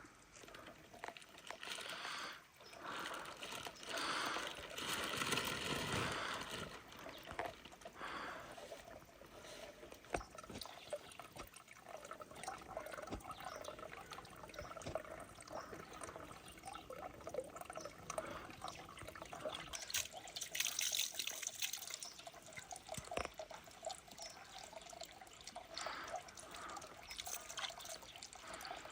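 Water trickling and pouring unevenly, with a louder stretch about four to six seconds in and again around twenty seconds in.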